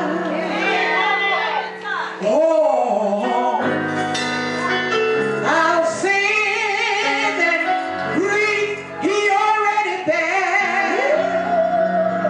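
Live gospel singing: a woman's lead voice with wide vibrato over held keyboard chords.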